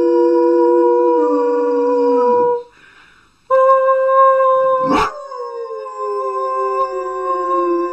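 A dog howling in long, drawn-out notes. It stops for about a second roughly two and a half seconds in, then starts again, with a sharp click about five seconds in.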